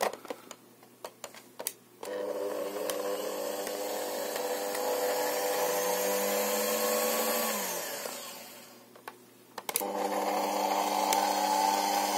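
Alesya-300 kitchen mixer's electric motor starts abruptly with a steady whine after a few handling clicks. It runs about five seconds, spins down with falling pitch, then starts again near the end. It runs because its cover is closed, pressing the safety limit switch.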